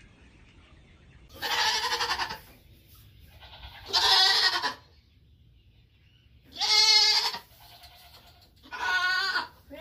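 Nigerian Dwarf goats bleating: four loud bleats of about a second each, spaced two to three seconds apart, the last two quavering.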